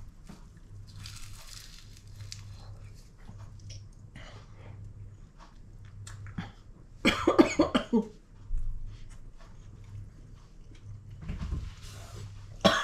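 A woman chewing flaky puff pastry with soft crunches, then coughing hard about seven seconds in and again near the end, as a flake of the pastry catches in the back of her throat.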